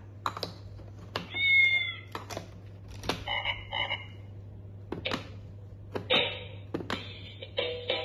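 Plastic clicks and knocks as animal figures are fitted onto a baby's electronic clapping-drum toy, mixed with short electronic sound effects from the toy's small speaker. The loudest is a pitched sound about a second and a half in, with another shorter one about three seconds in.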